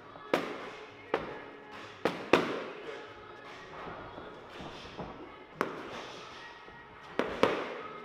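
Boxing gloves and padded training sticks smacking together in a run of sharp, irregularly spaced hits, some in quick pairs, each with a short echo in the gym.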